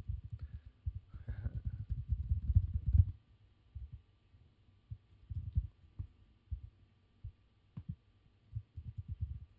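Typing on a computer keyboard, heard mostly as dull low thumps with a few sharper key clicks: a quick run for the first three seconds, then scattered taps.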